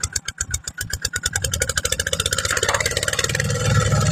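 Single-cylinder diesel engine of a two-wheel walking tractor working a field, its exhaust beats at first about ten a second, then quickening and running louder and smoother from about halfway through as the engine revs up.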